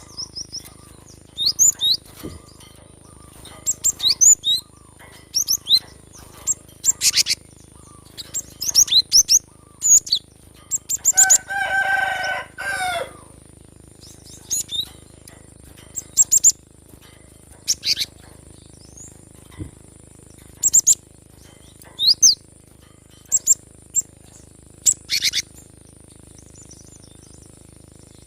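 Cinereous tit (gelatik batu) calling and singing in scattered bursts of short, sharp, high notes, over a faint steady high tone. About eleven seconds in, a rooster crows once for about two seconds.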